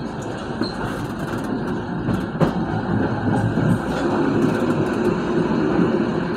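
Train running on the track: a steady wheel-on-rail rumble with a few sharp clicks as the wheels cross the switches.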